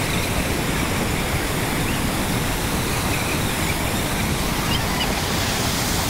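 Falling water of a large waterfall: a steady, unbroken rush of water noise.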